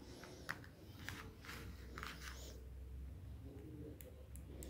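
Light handling of multimeter test probes and their leads: a sharp click about half a second in, then a run of short rustles and scrapes, and a few faint ticks near the end, over a low steady hum.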